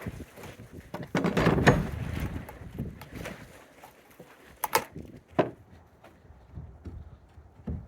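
Hands-on wood construction work: a rough scraping, rustling stretch about a second in, then a few sharp knocks and clacks.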